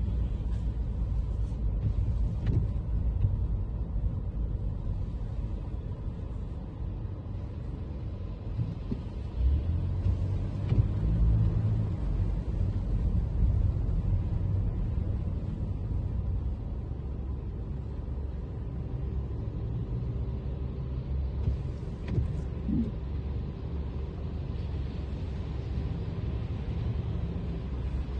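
Toyota Camry driving on rain-wet city streets: a steady low rumble of road and engine noise, swelling a little about ten seconds in.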